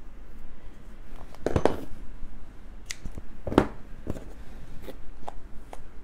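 Hands handling a skein of yarn and its paper label: a few short clicks and rustles, the loudest about one and a half seconds in.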